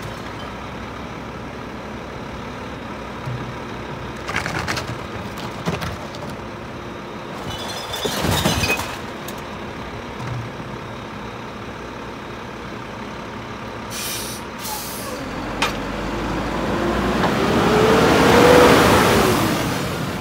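Mack LEU garbage truck's diesel engine idling, with clattering knocks as a recycling bin is emptied into its KANN Co-Collector hopper. Near the end the truck pulls away, its engine rising and getting louder, then falling in pitch as it passes.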